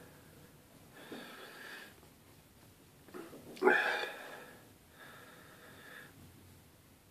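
A man breathing heavily through his mouth against a superhot chilli's burn: three audible breaths, the loudest a sharp one about three and a half seconds in.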